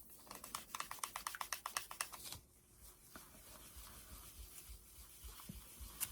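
Brush dabbing blush onto a painted wooden surface: a fast run of light taps, about nine a second, for about two seconds, then softer rubbing strokes.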